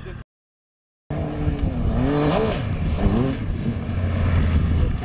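Motorcycle engine running under a steady drone, with two quick revs that rise and fall in pitch. Near the start, all sound drops out for under a second.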